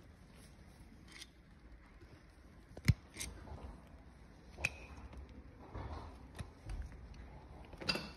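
Hoof nippers cutting a horse's hoof wall: a handful of sharp snips and clicks, the loudest about three seconds in, with a few smaller ones after it.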